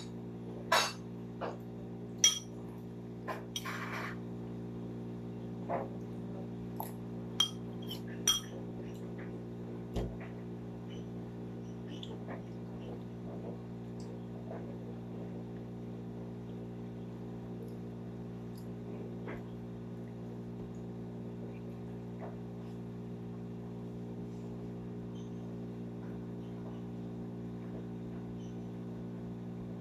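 Metal spoon clinking and scraping against a ceramic bowl, about a dozen sharp clinks over the first ten seconds, then stops. A steady low electrical hum runs underneath throughout.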